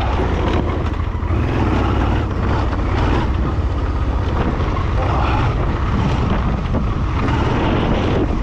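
Honda Transalp XL650V's V-twin engine running as the motorcycle is ridden off-road, with wind buffeting the microphone.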